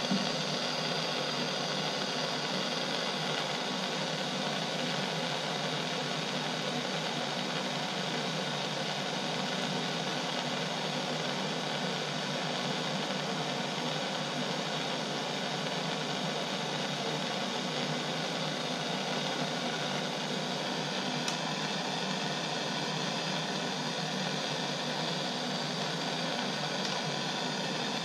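Handheld gas soldering torch burning with a steady, even hiss, heating copper shower-valve fittings ahead of soldering.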